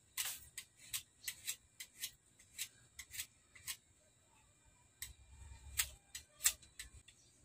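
A hand knife shaving pieces off a small workpiece: a run of short, sharp cutting scrapes at uneven intervals, with a pause of about a second past the middle.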